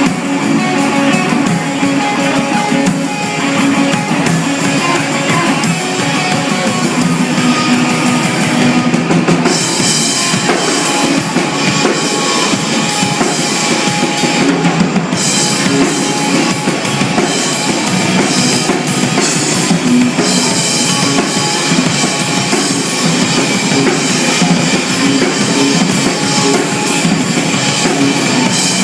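Live rock band playing an instrumental passage with drum kit, electric guitar and bass, with no vocals; the cymbals grow busier about nine seconds in.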